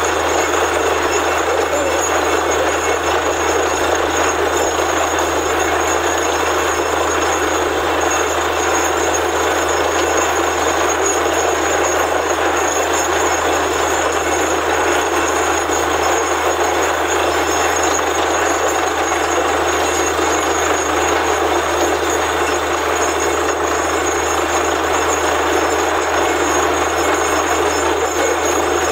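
Borewell drilling rig running steadily while drilling: a loud, even mechanical rush with a low hum beneath it, never letting up.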